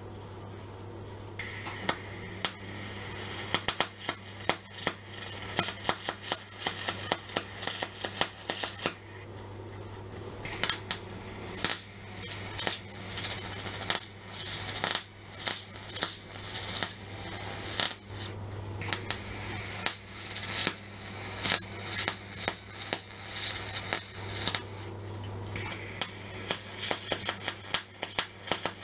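MIG welding arc crackling and sputtering in runs, starting about a second and a half in and stopping briefly three times between beads, over a steady low hum.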